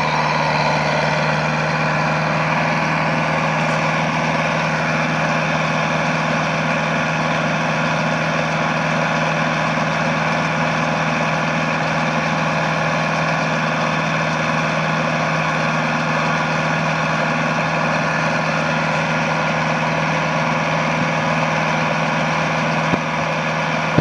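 Case 895 tractor engine and baler running steadily, with a constant low hum and no change in engine speed.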